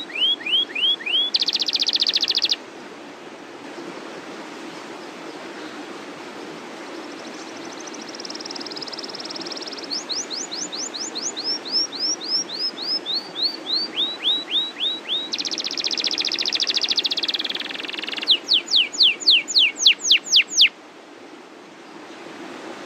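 Domestic canary singing, its song made of phrases of repeated sweeping whistled notes and fast rolling trills. There is a quieter stretch about three to ten seconds in, then more sweeping notes and a long roll, and the song stops about three-quarters of a second before the end.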